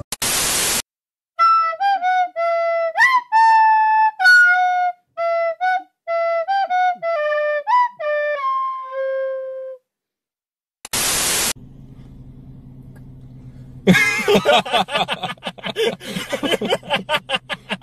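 A slow, plaintive melody on a flute-like wind instrument, one note at a time with small upward slides into some notes, lasting about eight seconds. Short bursts of static hiss come before and after it, and a loud, busy jumble of sound starts near the end.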